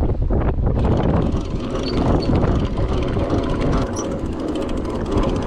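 Steady low rumble of wind buffeting the microphone on a fishing boat at sea, over the running boat engine.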